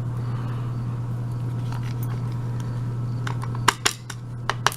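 Small metal lock parts clicking and clinking: five or six sharp clicks in the last second and a half as the plug and pins of a gutted euro cylinder are handled, over a steady low hum.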